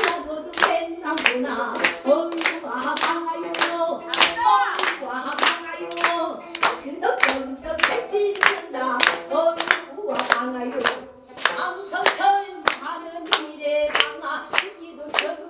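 Singing voice with steady hand-clapping keeping time, about three claps a second.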